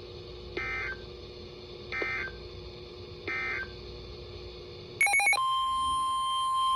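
Three short bursts of EAS/SAME end-of-message data tones, a warbling two-tone modem chirp repeated a little over a second apart over a faint hum, marking the end of the severe thunderstorm warning. About five seconds in a brief burst of data warble cuts in, then the single steady NOAA Weather Radio 1050 Hz warning alarm tone starts, heralding the next alert.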